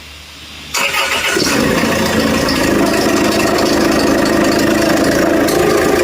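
Land Rover Freelander engine cranked by the starter and catching about a second in, then running steadily with a loud, tractor-like noise. The mechanic puts the noise down to the alternator belt and its tensioner.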